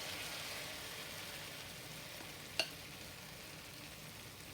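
Batter frying in hot oil in a pan, a steady sizzle as it browns on one side. A single sharp click sounds about two and a half seconds in.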